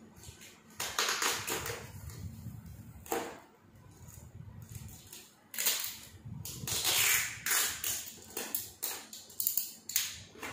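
Packing tape being pulled off its roll in several short noisy pulls and pressed down along the edge of a vinyl banner, with handling of the banner sheet between pulls.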